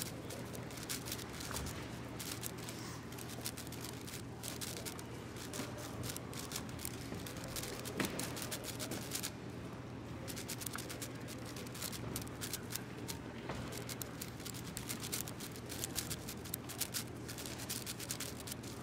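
AoShi WRM 6x6 speedcube being turned fast, its plastic layers giving a rapid, irregular run of clicks and clacks, over a steady low hum from the hall.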